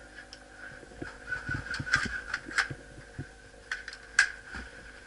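Scattered sharp cracks of airsoft guns firing, the loudest about two seconds in and again about four seconds in, over a steady high hum and some rustling of gear.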